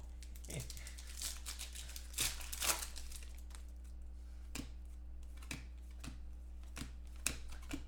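Trading cards being handled and flicked through by hand, with foil pack wrappers crinkling: short scattered rustles and clicks, busiest around two to three seconds in, over a steady low hum.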